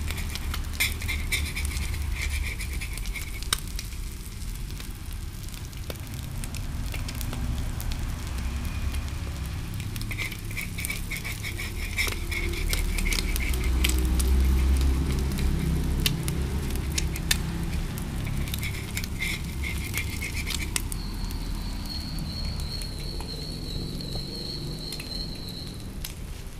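Egg and chopped onion frying in oil in a large wok, sizzling and crackling over the low rush of a gas burner. A metal spoon scrapes against the pan in a few short spells. A thin, wavering high whistle comes in for the last few seconds.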